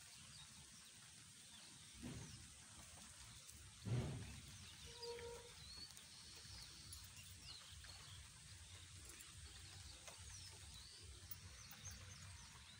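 Faint rural outdoor ambience with scattered distant bird chirps, a low thump about four seconds in, a softer one about two seconds in, and a short low call just after five seconds.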